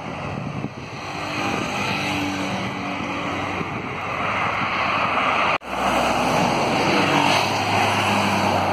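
Road traffic passing: tyre and engine noise building as a heavy truck drives by close, its engine a low steady drone in the second half. The sound cuts out for an instant a little past halfway.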